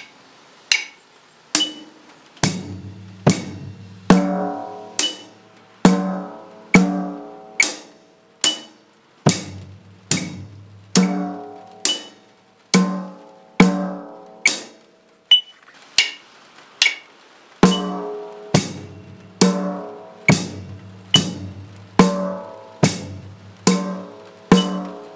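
Slow, steady beginner beat on a drum kit, one stroke a little under every second, struck on the snare drum and bass drum on each count of a four-beat bar.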